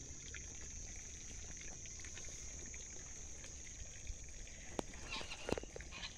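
Faint outdoor ambience with a steady high-pitched whine. Near the end come a few sharp clicks and the first calls of farm fowl, geese-like honks.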